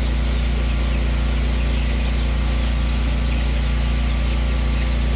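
A steady low mechanical hum, like a motor or engine running without change, with faint high peeping from young chickens over it.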